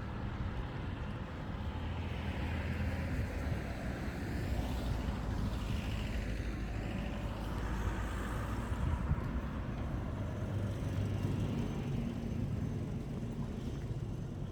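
Street traffic: a motor vehicle's engine rumble, with one vehicle passing close by about halfway through.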